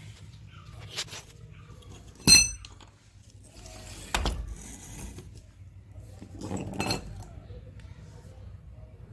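Metal tools and parts being handled and set down: a few knocks and clinks, the loudest a single sharp ringing metallic clink about two seconds in.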